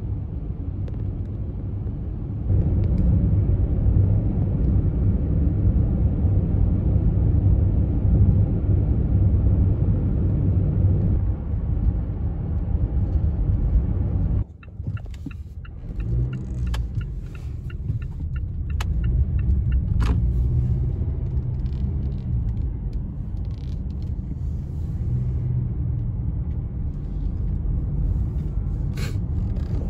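Car driving, with a steady low road and tyre rumble heard from inside the cabin. About halfway through it drops off suddenly, then builds back up, with a few short clicks along the way.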